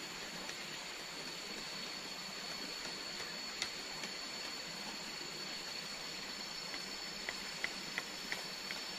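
Shallow forest stream running steadily, with a constant thin high-pitched whine over it. A few light clicks come near the end, about two a second.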